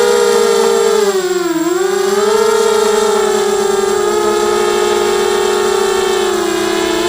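Brushless motors and propellers of a ZMR mini racing quadcopter whining steadily in flight. The pitch dips about a second and a half in, then climbs back and holds.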